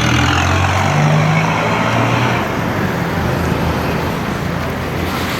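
A motor vehicle's engine running close by, its low hum dropping away about two seconds in, leaving steady street traffic noise.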